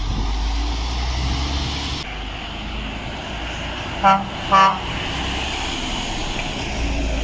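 Two short toots of a lorry's horn about half a second apart, a few seconds in, over the steady engine and tyre noise of articulated lorries driving past.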